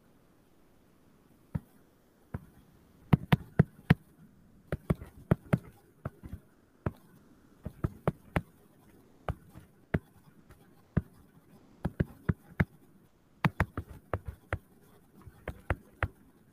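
Stylus tip tapping and clicking on a tablet screen during handwriting: irregular clusters of sharp taps, several a second with short pauses between, beginning about one and a half seconds in.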